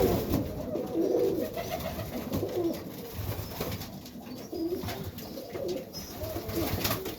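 Serbian highflyer pigeons cooing, low repeated coos from several birds.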